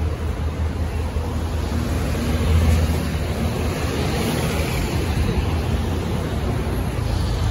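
Steady city street noise: a low rumble with an even hiss over it, from traffic on wet roads.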